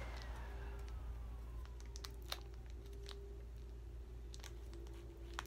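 Foil wrapper of a Pokémon card booster pack being picked and torn open by hand, giving scattered small crinkles and crackles over a low steady hum. A faint tone slides down in pitch over the first two to three seconds.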